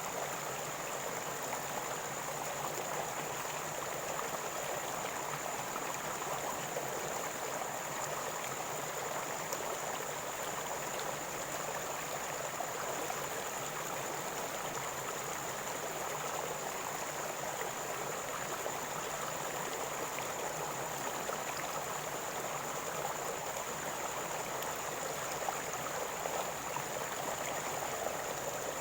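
River water flowing with a steady gurgling rush.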